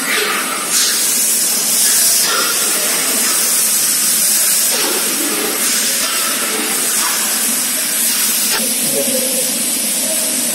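Steady, loud hiss from the cooking equipment of a large commercial kitchen, strongest in the high range. Faint voices and kitchen clatter sit beneath it.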